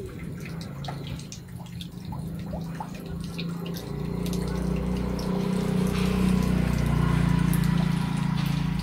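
Water dripping and trickling onto a tiled floor while a wet dog is washed, with many small scattered drips. A low steady hum underneath grows louder about halfway through.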